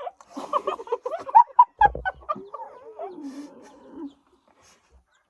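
Chickens clucking: a quick run of short calls with a thump about two seconds in, then a longer wavering call that fades out about four seconds in.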